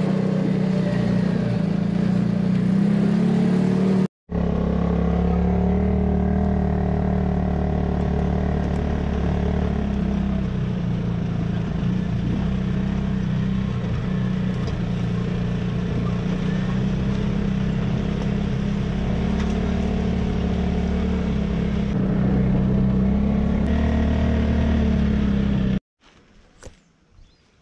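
An off-road 4x4 vehicle's engine runs steadily at low revs as a continuous drone, rising a little in pitch near the end. The sound drops out for a moment about four seconds in and stops abruptly near the end, leaving only faint clicks.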